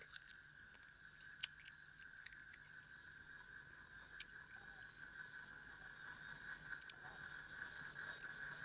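Faint eating sounds: a person chewing quietly, with a few scattered sharp mouth clicks, over a steady faint high-pitched hum.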